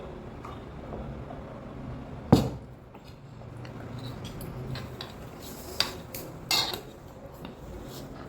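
Eating utensils clinking and knocking against a bowl or dish during a meal: one sharp, loud knock about two seconds in, then two more clinks around six seconds, with a few small ticks between.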